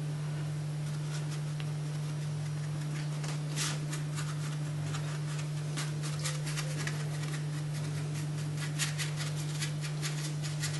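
Short, scratchy strokes of a dry paintbrush dragged downward across watercolour paper, starting about three seconds in and coming thick and fast in the second half, over a steady low hum.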